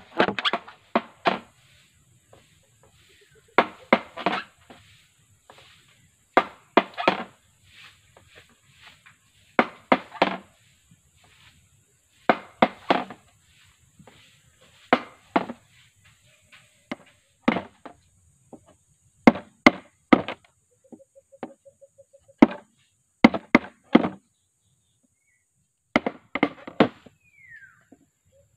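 Machete chopping into a green bamboo culm: quick strikes in groups of two to four, every two to three seconds. The blade is cutting along the culm's nodes so the bamboo can be split open and flattened into a sasag panel.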